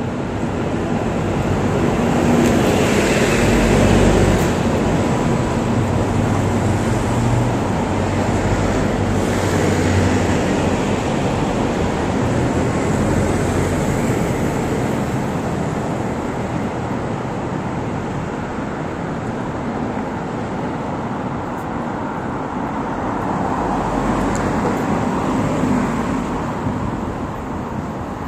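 Road traffic on a city street: a double-decker bus drives past close by, loudest about four seconds in, its engine humming low, then steady traffic noise with another vehicle swelling past near the end.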